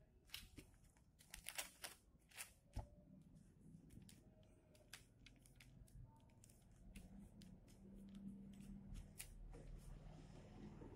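Faint scratches and crackles of cutting-sticker vinyl being handled: a craft knife tip lifting and peeling away cut vinyl. The loudest crackles fall in the first three seconds, and a faint low hum runs under the second half.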